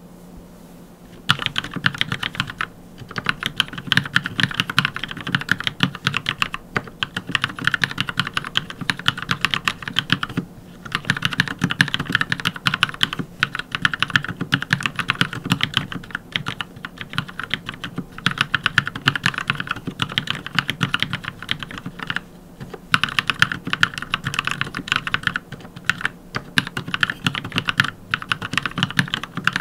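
Typing on an Anne Pro 2 60% mechanical keyboard fitted with NovelKey Cream linear switches lubed with Krytox 205g0. A fast run of keystrokes starts about a second in and goes on in bursts, with short pauses every few seconds.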